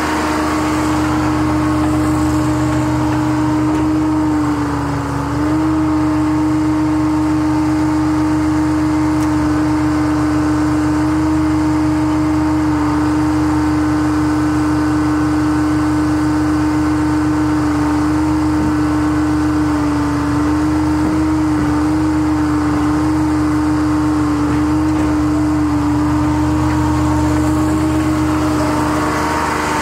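Gradall telescoping-boom excavator running and working its boom, a steady engine drone with a strong steady hum over it. The hum and level dip briefly about five seconds in, then hold steady.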